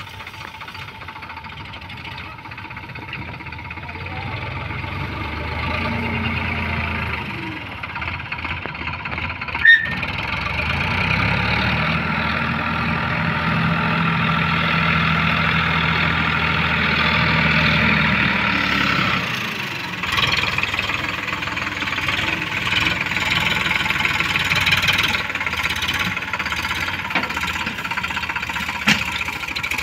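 Sonalika tractor's diesel engine working under load as it pulls a trailed paddy thresher over stubble, the engine note growing louder a few seconds in and strongest through the middle, with one sharp knock partway through.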